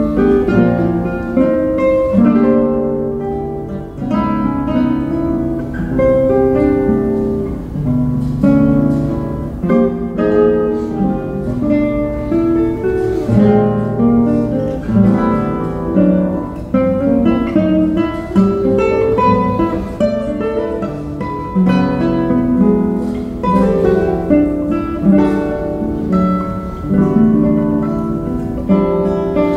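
Two handmade classical guitars, an Antônio de Pádua and a Paulo Marcos, playing a contemporary classical duo together: a continuous stream of plucked notes and chords in busy interweaving lines.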